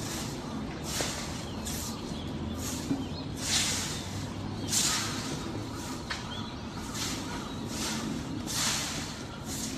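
An azure-winged magpie bathing in shallow water: a series of short splashes from its dipping and wing-flapping, the loudest about three and a half and five seconds in.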